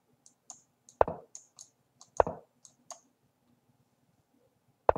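Computer mouse clicks together with an online chess program's piece-move sound effects during fast blitz play. Three louder knocks come about a second in, about two seconds in and at the very end, with lighter, sharper clicks between them.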